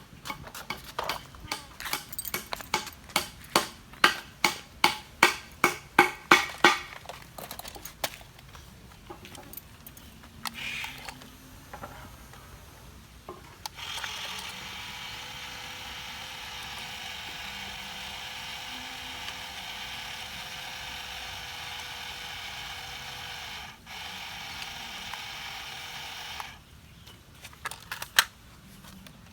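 A battery-powered toy excavator: first a quick run of plastic ratchet clicks, louder toward the end, then after a pause its small electric motor whirring steadily for about twelve seconds, dropping out for a moment once. A few more clicks come near the end.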